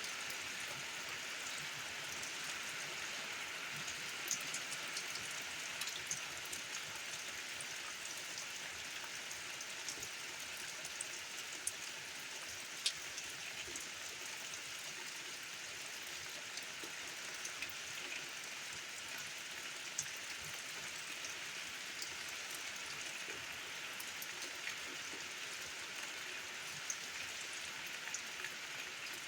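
Steady rain falling: an even hiss with many single drops ticking sharply through it.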